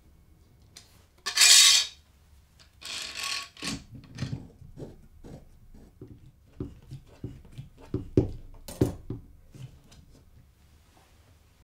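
Workshop handling noise from a long metal bar clamp and a stacked plywood-disc cylinder on a bench: a loud scrape about a second and a half in, a shorter one around three seconds, then a string of light knocks and clicks as the clamp is fitted and tightened on the cylinder.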